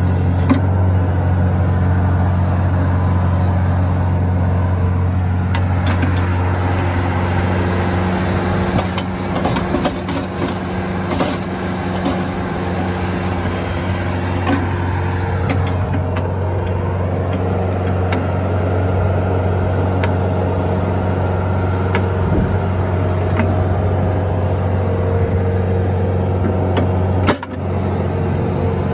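Compact track loader's diesel engine running steadily under load while its hydraulic auger attachment drills a post hole into frozen ground, with a few short knocks in the middle and one near the end.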